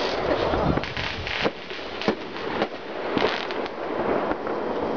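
Fireworks exploding: an uneven series of sharp bangs and crackles over a continuous background of more distant bangs, the loudest about two seconds in.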